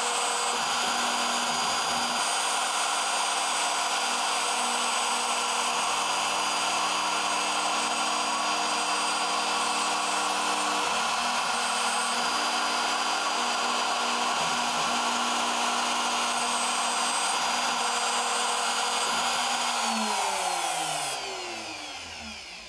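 CNC router spindle running while milling through 4 mm hard PVC sheet: a loud, steady whine over cutting noise. About 20 seconds in, the pitch slides down and the sound fades as the spindle spins down at the end of the cut.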